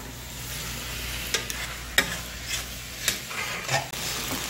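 Food sizzling on a hot pan as it is stirred, with about five sharp clacks of a utensil against the pan.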